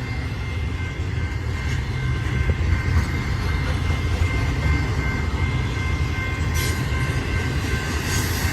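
Intermodal freight train cars rolling past with a steady low rumble and a steady high whine. Among them are refrigerated units whose diesel engines are running to keep their loads frozen.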